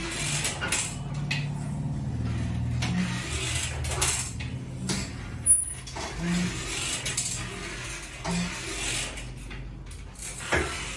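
Flexion-distraction decompression table's mechanism working under a patient: a low steady mechanical hum with a short pulse every couple of seconds and a few sharp clicks, the loudest about halfway through.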